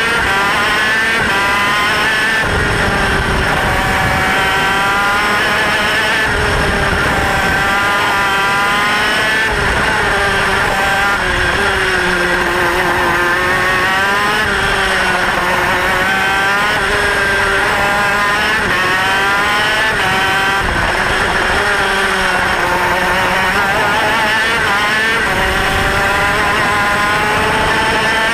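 Racing kart engine at high revs, heard from on board the kart. Its pitch climbs and drops again and again, rising along the straights and falling back for the corners.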